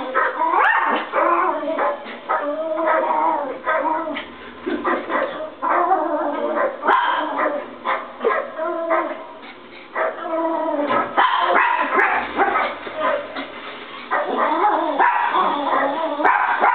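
Yorkshire terrier puppies barking and yipping in quick, near-continuous bursts, easing briefly twice before picking up again.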